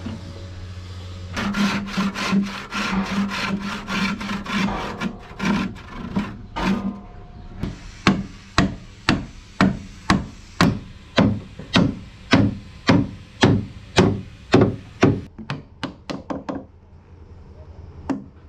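Carpentry on a wooden bench: first a fast run of rubbing strokes, then a claw hammer striking wood about twice a second, ending in lighter, quicker taps.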